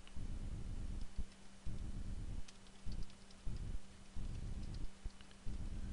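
Typing on a computer keyboard: scattered, irregular soft key clicks with dull low thumps, over a faint steady low hum.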